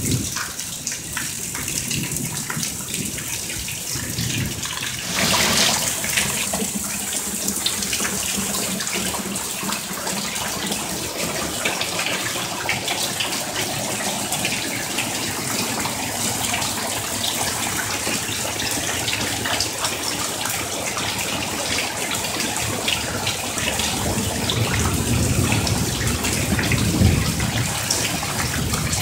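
Heavy monsoon thunderstorm rain pouring down steadily with water splashing, swelling louder for a moment about five seconds in.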